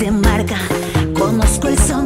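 Peruvian cumbia band music with a steady dance beat: drums and bass under a melodic lead line, between sung phrases.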